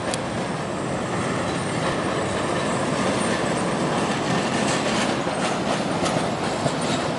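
Vintage electric streetcar running along street rails as it approaches, a steady rumble of steel wheels on the track that grows a little louder, with a few faint clicks.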